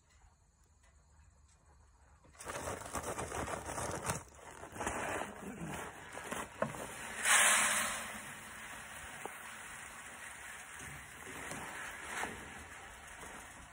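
A plastic seed sack rustling and crinkling as it is lifted and handled, loudest about seven seconds in. Then seed pours from the sack into a cut-down plastic water jug in the spreader's hopper, a steady pattering hiss like rain.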